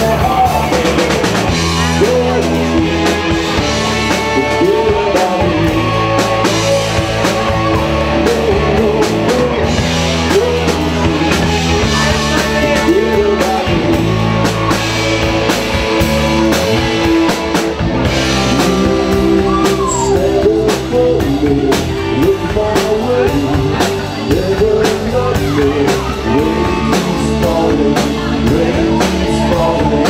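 Live rock band playing, with electric guitars, a drum kit and a singer.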